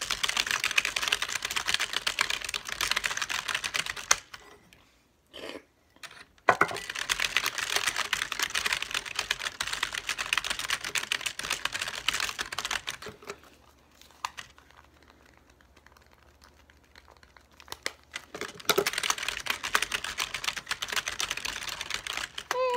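Fast typing on a computer keyboard in long bursts of several seconds, broken by pauses. A short beep sounds at the very end.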